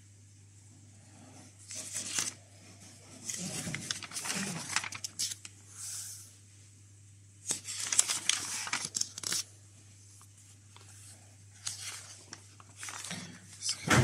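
Paper pages of an old printed instruction booklet being handled and turned, rustling and crinkling in several separate bursts.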